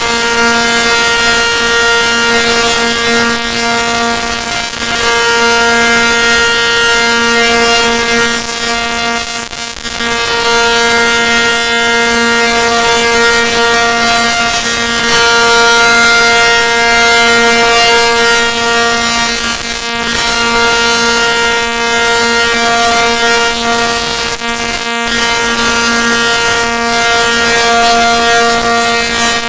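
Outdoor tornado warning siren sounding a steady, unwavering tone, its loudness swelling and fading slightly every few seconds.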